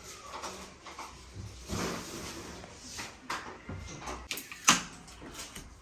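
Knocks, bumps and shuffling as a large refrigerator is handled and moved into place, with a sharp knock about three-quarters through.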